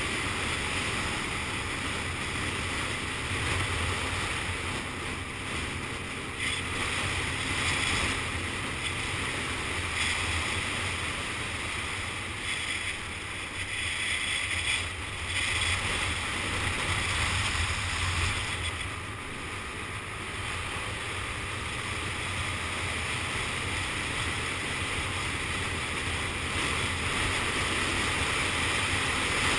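Steady wind rushing over the microphone of a camera on a moving motor scooter, with the scooter's engine and road noise running underneath.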